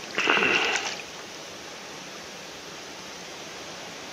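Steady rush of flowing stream water, with a short burst of splashing in the first second as a hooked brown trout thrashes at the surface beside the angler's hand.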